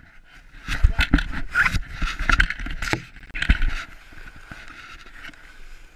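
Footsteps crunching in packed snow, a quick irregular run of them for the first few seconds. After that comes a quieter, steady scraping of a plastic sled sliding over the snow.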